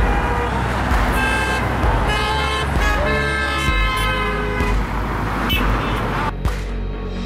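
Car horns honking several times, held tones that overlap, over the noise of passing road traffic.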